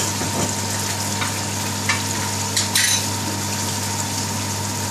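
Tomato curry sizzling and bubbling in an aluminium pot on a gas hob, a steady hiss with a few small pops, over a steady low hum.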